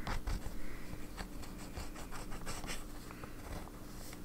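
Sailor 1911S fountain pen nib scratching across paper in a run of quick, irregular short strokes, a nib that is writing kind of dry.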